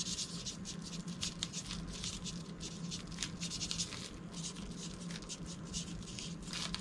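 Marker pen writing on a plastic-wrapped padded package: a quick run of short scratchy strokes, over a faint steady low hum.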